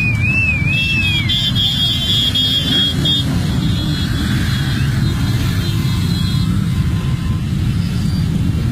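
Many motorcycle engines running together in a steady low rumble. A warbling whistle sounds at the start, and a run of quick horn toots follows over the next couple of seconds.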